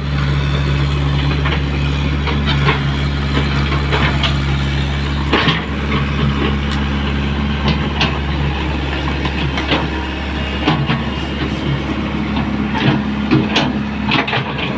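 Komatsu PC75 excavator's diesel engine running steadily, its low hum shifting slightly in pitch about five and again about eleven seconds in, with many sharp metallic clicks and knocks over it.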